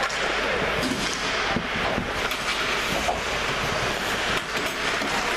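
Steady hall noise of an indoor ice rink, with a few short scrapes and taps of skates and sticks on the ice.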